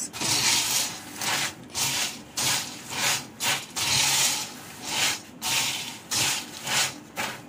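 Spatula stirring crisp fried boondi and fried curry leaves in a stainless steel bowl, tossing in salt and chili powder. Rustling, scraping strokes come about twice a second.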